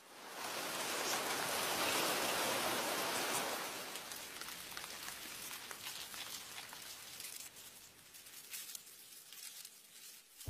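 Faint, even hiss of outdoor ambient noise, rain-like in texture, that swells in the first second and fades away to near silence over the second half.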